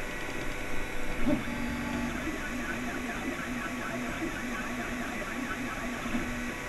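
Anet A8 3D printer printing, its stepper motors whining in a run of short, stepped tones as the print head traces the outline. Under it runs the steady whir of the printer's fans.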